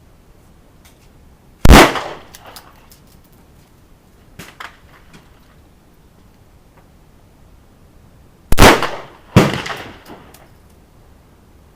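Handgun shots: one loud shot about two seconds in, then two more under a second apart near the end, each trailing off in a short echo. A fainter crack or two, from other shooting, comes in between.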